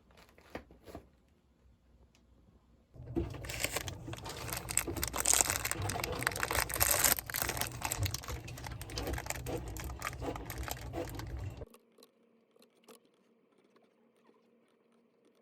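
Close crinkling and rustling, as of material being crumpled or handled, lasting about nine seconds from about three seconds in, with a few faint clicks before and after.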